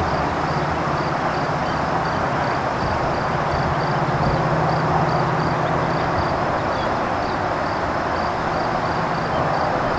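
A diesel-hauled commuter train passing on the mainline: a steady rolling rush with a low locomotive engine drone that fades out about six seconds in. A faint high tick repeats about twice a second throughout.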